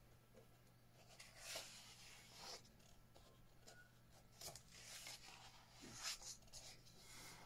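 Faint rustling of paper as the pages of a paperback workbook are turned by hand one after another, with several soft swishes a second or so apart.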